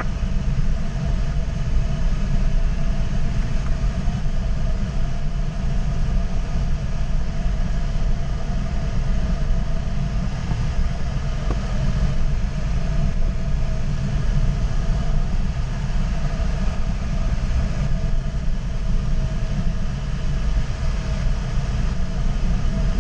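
Steady rush of airflow in the cockpit of an ASK 21 two-seat glider in unpowered flight, heavy in the low end, with a faint steady tone above it.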